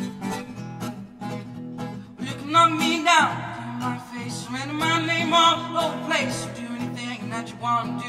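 Live solo music: an acoustic guitar strummed steadily while a male voice sings two phrases of long held notes with vibrato.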